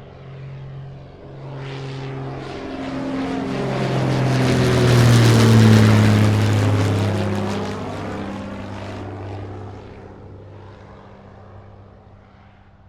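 Propeller airplane passing close by. Its engine and propeller grow louder to a peak about five seconds in, then fade, and the engine note drops in pitch as it goes past.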